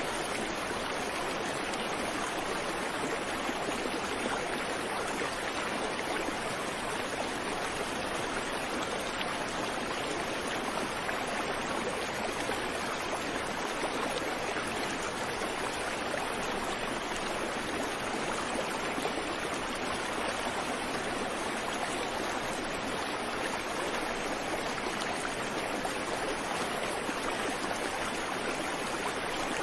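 A creek flowing over rocks: a steady, even rush and babble of running water, with no birdsong.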